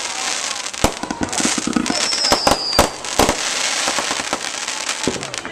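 Fireworks going off in rapid succession: many sharp bangs and crackles overlapping over a steady hiss, with a brief high whistle about two seconds in.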